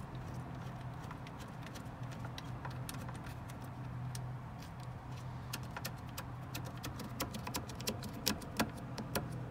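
Small plastic NMEA 2000 connectors and cables handled and fitted together by hand, giving irregular clicks and rattles that thicken over the last few seconds. A steady low hum runs underneath.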